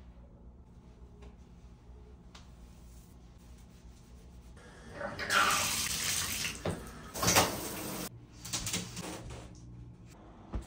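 Quiet room tone, then water running from a tap about five seconds in, in a few stretches broken by short pauses.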